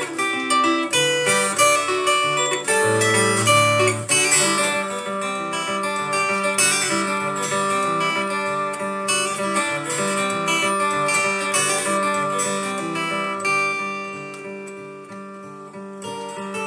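Solo steel-string acoustic guitar playing an instrumental tune: a quick run of picked notes over a bass line. It softens for a couple of seconds near the end, then picks up again.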